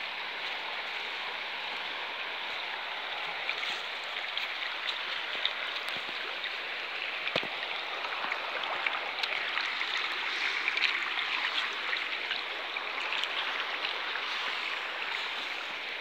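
Shallow river water running over stones, a steady rushing noise that swells a little in the second half, with a single knock about seven seconds in.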